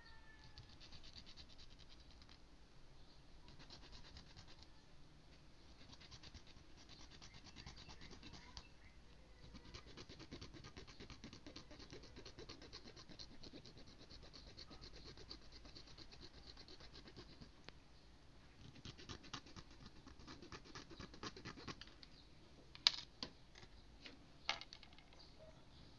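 A fine-toothed hobby saw cutting a small plastic socket out of a model-kit part: faint, quick rasping strokes, then two sharp clicks near the end.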